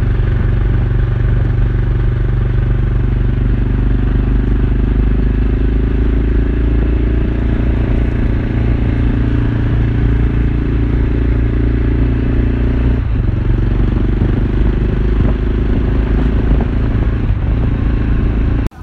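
Yamaha XT500's single-cylinder four-stroke engine running steadily while the bike is ridden along a road, heard from on the motorcycle.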